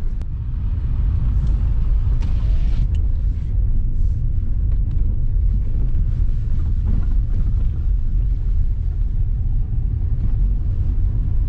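Lada Vesta driving over a rough, potholed road: a steady low rumble of tyres and suspension, with a few light knocks scattered through it.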